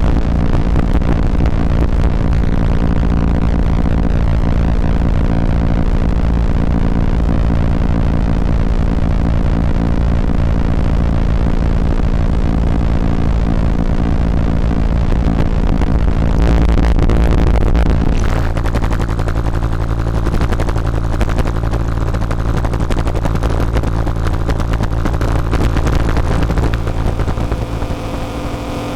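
Loud, dense roaring noise from a PT2399 digital delay module in a modular synthesizer, pushed into a heavy, distorted wash weighted to the low end. It shifts about two-thirds of the way in, then thins near the end as steady tones come through.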